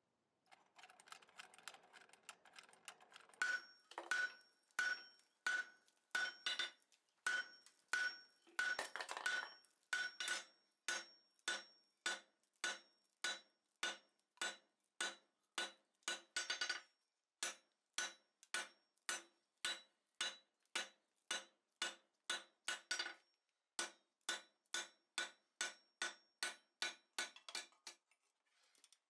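A hand hammer striking red-hot steel bar on an anvil in a steady rhythm of about two blows a second, the anvil giving a clear high ring after each blow, while the bar is forged and bent into a scroll. Faint quick clicking comes before the first blows.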